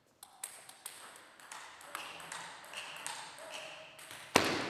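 Table tennis ball clicking off the bats and table in a rally, a quick string of sharp pings. It ends in a loud sudden hit near the end.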